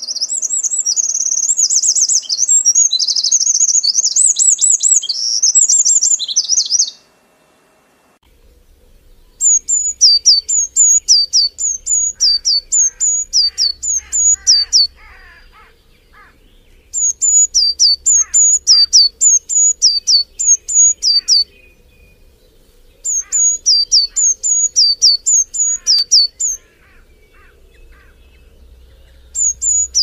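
Songbirds singing. First comes a rapid, high twittering warble that breaks off about seven seconds in. After a short pause, a bird repeats a phrase of about ten high whistled notes, each dropping in pitch, with a few seconds' rest between phrases.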